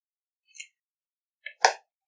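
Faint handling clicks of shaping dough, then one short sharp tap about one and a half seconds in as a flattened wheat-dough disc is set down on a paper plate.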